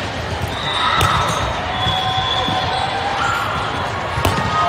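Echoing gym noise during an indoor volleyball rally: a sharp ball contact about four seconds in, high squeaks from shoes on the hardwood court, and a murmur of voices in a large hall.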